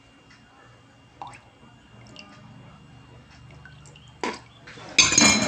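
Liquid dribbling and dripping into a ceramic mug, with a sharp knock and then a loud sudden burst of noise near the end.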